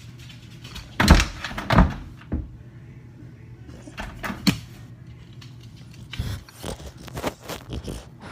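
A series of knocks and thumps: two loud ones about a second in, more around four seconds, and a cluster of lighter knocks near the end.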